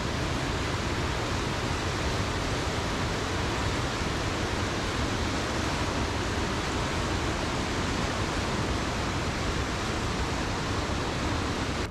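Whitewater rapids and a small waterfall on a river, rushing with a steady, even sound.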